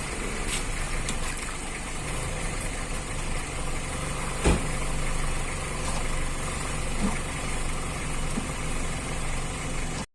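Honda CR-V's petrol engine idling steadily, with one sharp knock about four and a half seconds in; the sound cuts off suddenly at the end.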